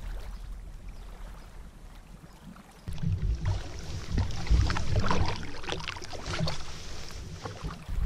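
Wind buffeting the microphone, with water lapping and splashing against a canoe on choppy open water. It turns suddenly louder and gusty about three seconds in, after a quieter low rumble.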